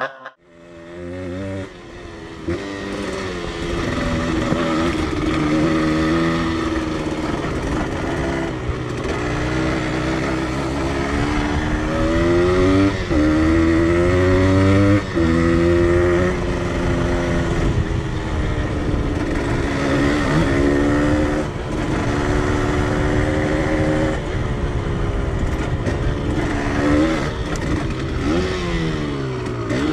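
Yamaha DT 125X's single-cylinder two-stroke engine under way, its pitch rising again and again as it accelerates and dropping back at gear changes or when the throttle closes.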